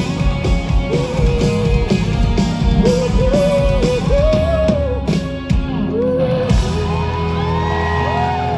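Live pop-rock band playing loud: drum kit and guitars under a wavering melody line. The drums stop about six seconds in, and held chords with gliding notes ring on as the song draws to its close.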